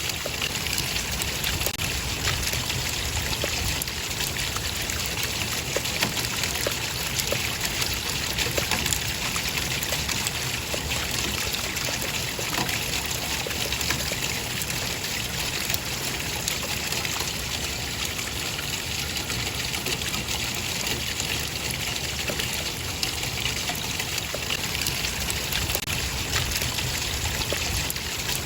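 Running water trickling and splashing steadily, a continuous even rush with small irregular splashes.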